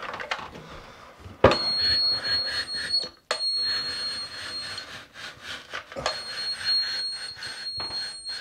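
Electronic stud finder sliding across a drywall ceiling, giving a steady high-pitched tone that comes on and cuts off three times as it passes over a stud.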